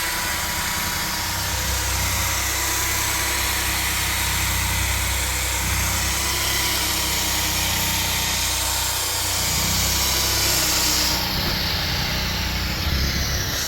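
A power tool running steadily: a continuous whirring hiss over a low hum, with no break. The highest part of the hiss thins out a little about eleven seconds in.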